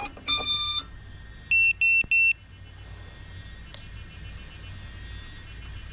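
Geprc Mark 5 FPV quadcopter beeping as it is powered up: a long beep ends, then a second, higher long beep, then three short, still higher beeps in quick succession, the tones rising in pitch. After that only a faint steady hiss, with one small click near the middle.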